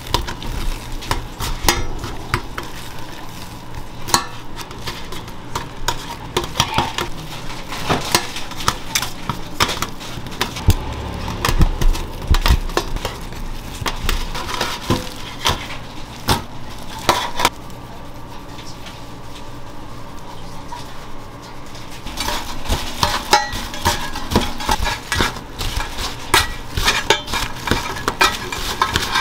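Kitchen clatter of food preparation: many quick clicks and knocks of utensils and dishes against each other, thinning out for a few seconds about two-thirds of the way through.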